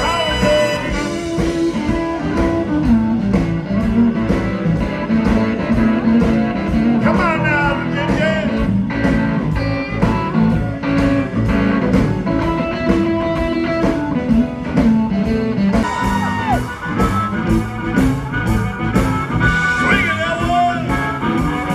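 Blues band playing an instrumental stretch: electric guitar with bent, sliding notes over steady bass and drums.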